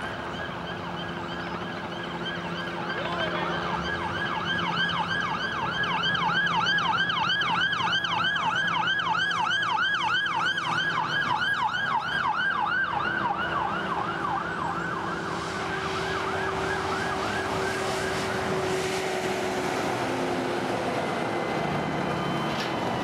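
Siren of a convoy escort vehicle sounding a fast yelp, about three to four sweeps a second, getting louder a few seconds in and dying away about three quarters of the way through. Steady noise of highway traffic and passing trucks runs underneath.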